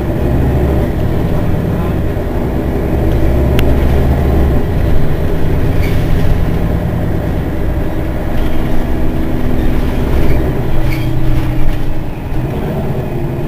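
Mercedes-Benz Citaro city bus standing at a stop with its rear-mounted engine idling, a steady low hum.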